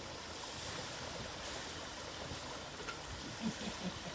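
Steady rushing hiss of flowing water, like a stream, with a few short low sounds near the end.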